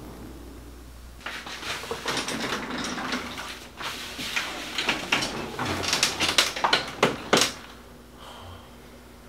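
A person moving about at a desk and sitting down in a gaming chair: a run of rustling, bumps and clicks, with several sharp knocks toward the end before it settles.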